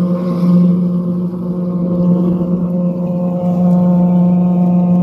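High-pressure drain jetter's engine and pump running steadily under load while its root-cutter nozzle jets tree roots out of a sewer pipe. The engine note holds level and even throughout.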